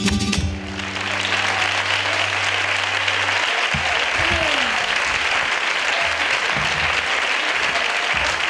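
Audience applauding loudly at the end of a flamenco alegrías performance. It begins right after a few final sharp strikes, with the guitar's last chord ringing low underneath for the first three seconds or so.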